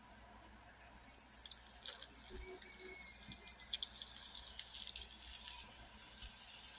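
Carbonated soda poured from a can over ice into a paper cup: a click about a second in, then a steady fizzing pour with small crackles from the ice and bubbles.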